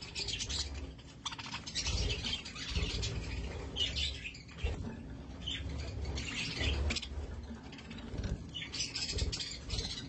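Young budgerigars chirping in short bursts every second or two, with scratching and pecking in wood-shaving bedding and a metal feed bowl.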